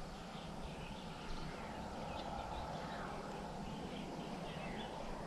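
Faint outdoor ambience with many short, scattered bird calls.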